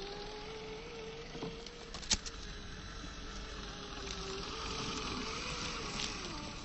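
Brushed electric motor of a 1/10-scale RC rock crawler (Reedy 550 14-turn) running with a steady whine that wavers slightly in pitch as the throttle changes. A sharp click sounds about two seconds in.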